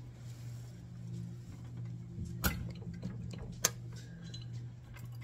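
Two sharp metal clicks about a second apart as a GY6 engine's cylinder head is handled and worked loose, over a steady low hum.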